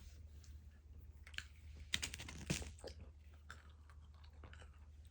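Faint, irregular small clicks and crunches of someone chewing a piece of candy close to the microphone.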